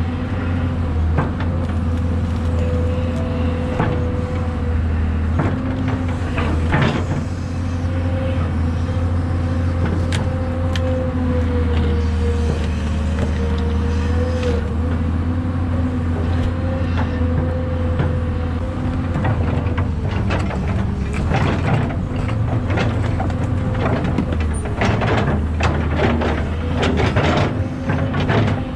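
Tracked excavator's diesel engine running steadily under load with a wavering hydraulic whine, over repeated knocks, clanks and scrapes that grow thicker in the second half.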